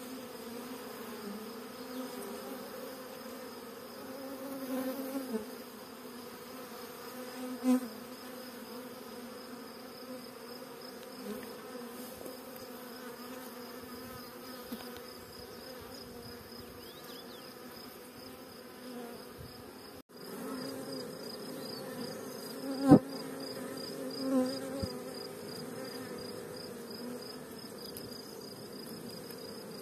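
Honeybee swarm humming steadily, a dense cluster of bees buzzing close up. Two sharp knocks cut through, about 8 seconds in and, loudest, about 23 seconds in.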